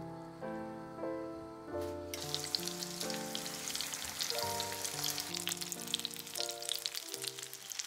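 Coated zucchini halves frying in hot oil in a pan, a steady sizzle with crackling that starts abruptly about two seconds in, under soft piano-like background music.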